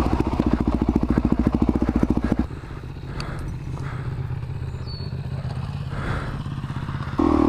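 Motorcycle engine running close to the microphone, with fast even firing pulses, until it cuts off suddenly about two and a half seconds in. A quieter, steadier motorcycle engine follows, heard from farther away. The loud close engine comes back near the end.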